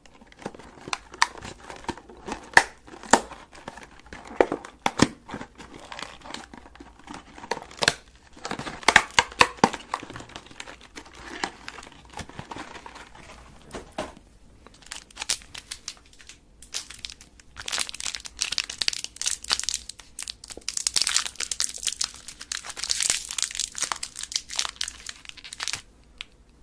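Candy packaging crinkling and being torn open close to the microphone, in many irregular crackles, busiest in the second half and stopping just before the end.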